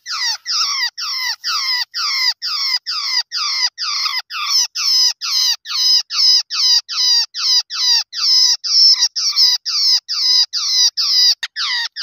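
Trapped babbler giving harsh, rapidly repeated distress squawks, about three a second without a break, while it is pinned in a spring trap and then handled.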